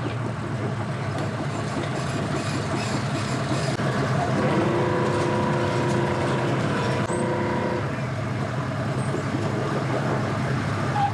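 Engines idling in a steady low hum, with a second, higher engine note coming in from about four and a half seconds in and fading out near eight seconds.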